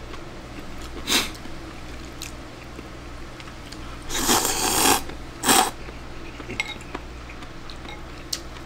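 A person slurping glass noodles from a bowl of taipien soup: a brief slurp about a second in, then a long slurp and a shorter one about halfway through.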